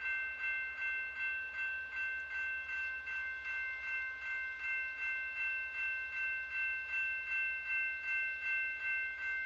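Railroad grade-crossing warning bell ringing in a steady, even rhythm of about two and a half strikes a second, a high ringing tone on each strike.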